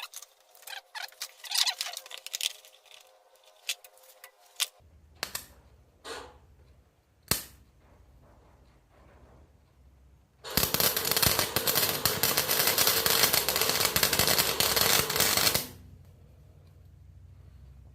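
Electric arc welder tacking steel: a few short pops, then a weld run crackles loudly for about five seconds past the middle and cuts off. A low hum comes on about a third in and carries on. The welder is plugged into a shared household outlet too weak for good penetrating welds, so these are only tacks.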